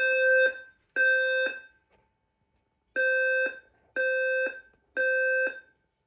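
Ceiling speaker-strobe of a Notifier NFS2-3030 voice-evacuation fire alarm system sounding the temporal-three evacuation tone: half-second pulses of a low, buzzy tone in groups of three with a pause between groups. Two pulses end one group, then after the pause a full group of three sounds.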